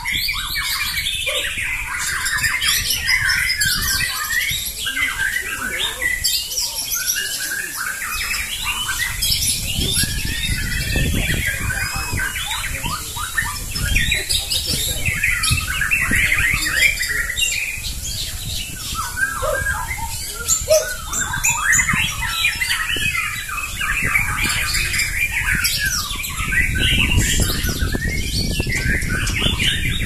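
Several caged white-rumped shamas (murai batu) singing at once in a song duel, with rapid, overlapping song phrases that do not let up.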